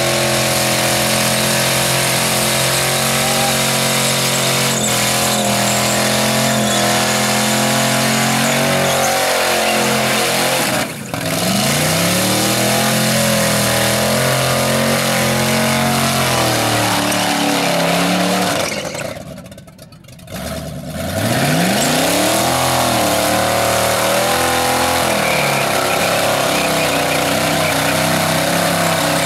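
Holden VB Commodore V8 doing a burnout: the engine is held at high revs while the rear tyres spin and screech. The driver lifts off briefly about eleven seconds in and for longer around two-thirds of the way through, the revs dropping and then climbing back up.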